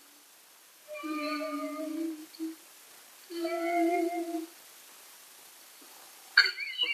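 A voice softly humming two held 'dee' notes, each about a second long, as the echo song fades away quieter and quieter. Near the end a sudden, louder, rougher sound breaks in.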